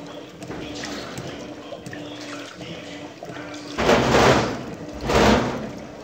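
Electrolux Turbo LT12F top-load washing machine agitating a load in the heavy-soil wash cycle: a motor hum that cuts in and out over churning water. About four and five seconds in come two loud surges of sloshing water.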